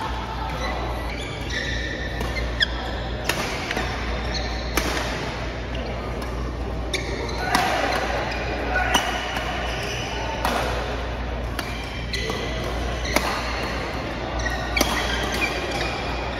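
Badminton doubles rally: sharp racket-on-shuttlecock hits about every one to two seconds, with short squeaks of shoes on the court floor between them, ringing in a large hall.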